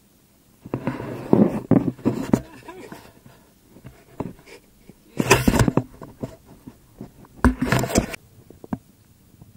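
A man's voice in short, irregular bursts, laughing and talking without clear words.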